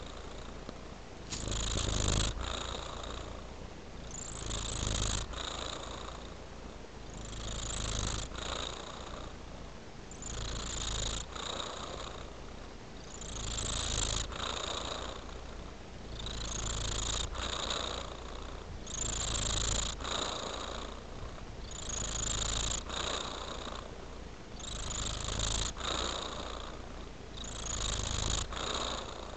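Domestic tabby-and-white cat purring steadily, the purr swelling and fading in a regular rhythm about every three seconds.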